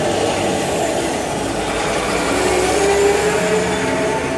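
Vehicle driving with a steady mix of engine and road noise; faint engine tones drift slightly up and down.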